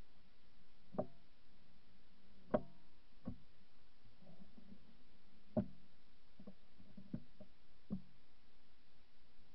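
Scattered light knocks and clicks, about eight of them at uneven intervals, the loudest a little before the middle, over a faint low steady hum.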